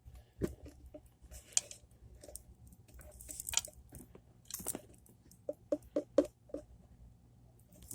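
Quiet, scattered clicks and crackles of plastic containers and a cup being handled while an ingredient is poured for slime, with a short run of soft ticks a little past the middle.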